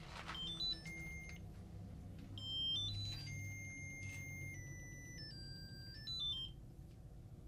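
V Pod proximity sensor playing electronic beeping tones: a short rising run of notes near the start, then a longer tune of stepped notes. It goes off because a hand is disturbing the field around its antenna while the device is being set in place.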